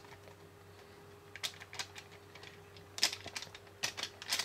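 Small paper powder packet crinkling in the hands as it is handled and emptied into a cup. The crinkling comes in short crackly bursts, about a second and a half, three and four seconds in.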